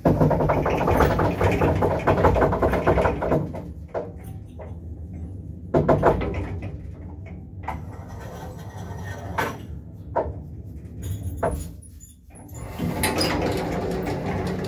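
1977 KMZ passenger elevator: its mechanism runs with a dense rattle for the first few seconds, a loud double knock comes about six seconds in, then a few single clicks follow. Near the end the car's automatic doors slide open with a rumbling rattle.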